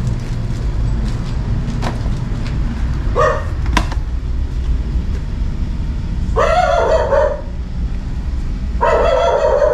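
A dog barking a few times: a short bark about three seconds in, a longer one around six and a half seconds, and another near the end. A steady low hum runs underneath.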